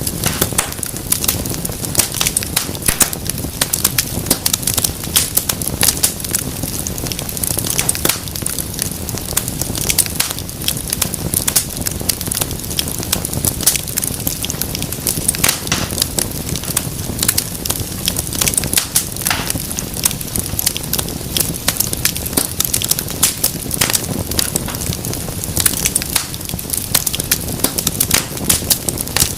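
Wood fire burning in a fireplace, crackling and popping in dense, irregular snaps over a steady low rush of flame.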